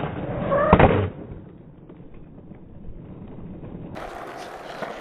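Skateboard wheels rolling on concrete, with a sharp, loud clack of the board striking the ground just under a second in. After that the rolling falls to a much quieter noise.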